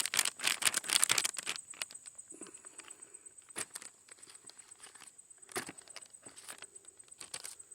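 MRE flameless ration heater crackling and popping as it reacts, overfilled with water. The crackling is dense for the first second or so, then thins to scattered pops over faint fizzing.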